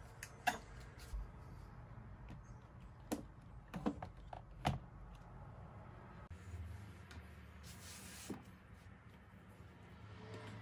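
A few light knocks and clicks of small objects being handled and set down on a desk, the sharpest in the first five seconds, with a soft rustle later, over faint room tone.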